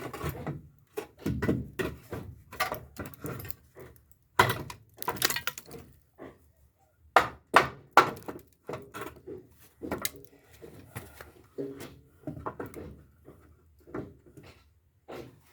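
Irregular wooden knocks, thuds and clatters: timber being handled and knocked into place while formwork for a concrete deck is set up.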